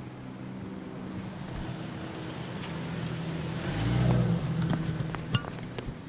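Street traffic: a car's engine hum swells as a vehicle passes, loudest about four seconds in. A few sharp taps follow near the end.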